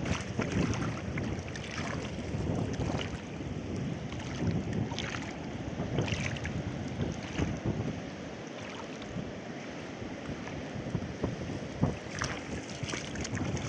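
Wind buffeting the microphone, with shallow sea water sloshing and splashing around wading legs.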